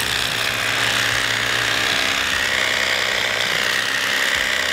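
Electric fillet knife running steadily as its reciprocating blades slice open a bluegill's belly, a constant motor buzz with a high whine that wavers slightly in pitch as it cuts.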